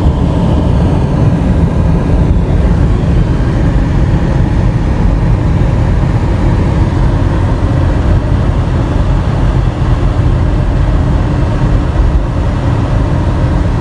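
Steady low rumble of a car driving at road speed, tyre, road and engine noise heard from inside the cabin.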